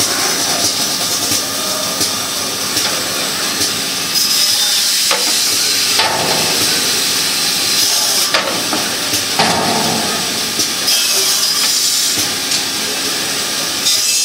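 Vertical band saw cutting a metal casting, a loud steady hiss and rasp of saw and machinery. The noise shifts in tone every couple of seconds as the cut goes on.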